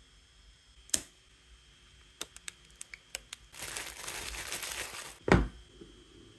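Clear cellophane wrap being peeled off a cardboard box and crumpled by gloved hands: a few sharp crackles, then about a second and a half of steady crinkling, followed by a single low thump.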